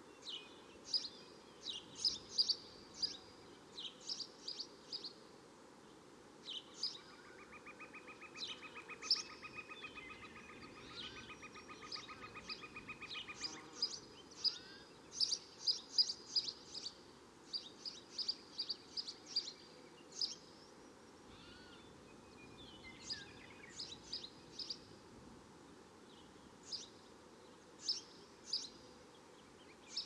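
Swamp and jungle bird ambience: birds giving short high chirps, singly and in quick runs, over a low steady background hiss. About seven seconds in, a rapid buzzing trill joins them for about six seconds.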